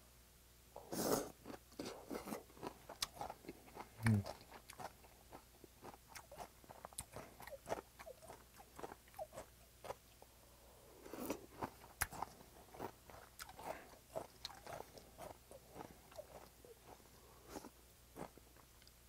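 Close-up eating sounds of a person eating spicy cold raw-squid mulhoe with chopsticks: slurps about a second in and again around eleven seconds, with chewing heard as many short wet clicks between them. A brief low rising hum comes from the eater about four seconds in.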